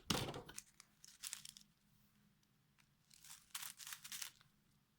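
Small plastic packets of craft beads crinkling and rustling as they are handled, in a few short spells: the loudest right at the start, another about a second in, and a longer one between three and four seconds in.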